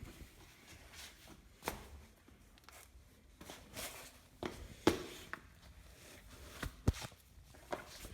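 A few scattered soft knocks and scuffs at irregular intervals, the loudest about five seconds in and just before seven seconds.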